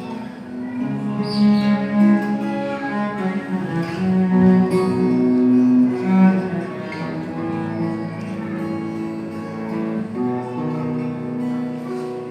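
Cello playing a slow melodic interlude of long bowed notes over acoustic guitar accompaniment.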